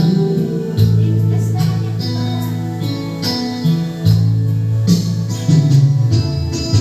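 Instrumental break in a Tagalog love song: guitar chords strummed over held bass notes that change every second or so, with no singing.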